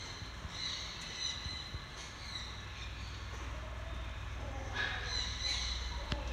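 Small birds chirping repeatedly in the background over a steady low hum, with a single sharp click near the end.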